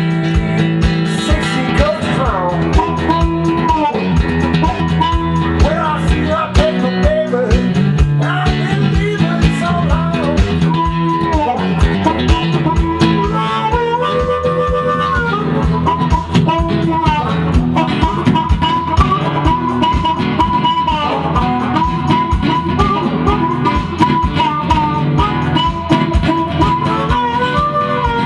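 Acoustic guitar and amplified blues harmonica playing a blues tune together: a steady strummed guitar rhythm under bending, wavering harmonica notes.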